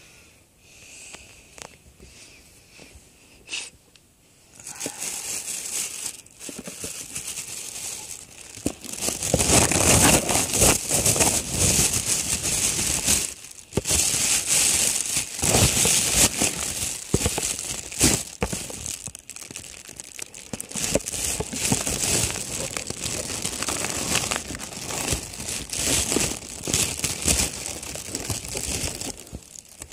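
Packaging crinkling and rustling as it is handled in irregular bursts. It is faint for the first few seconds and louder and busier from about nine seconds in.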